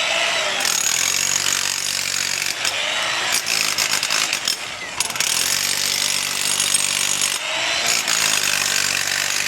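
Power saw cutting in repeated passes about every two and a half seconds, its motor pitch dipping as each cut takes the load.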